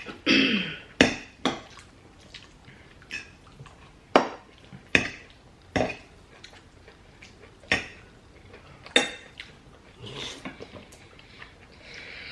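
Cutlery clinking against plates while eating: a string of sharp clicks, roughly one to two seconds apart, with softer eating sounds between them.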